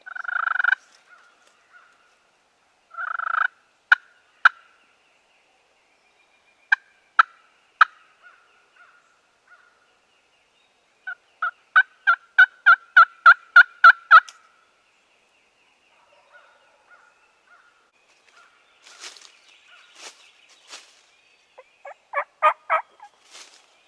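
Wild turkey calling: two rattling gobbles, then single yelps, and later a run of about ten sharp yelps at about four a second. A short cluster of yelps comes near the end.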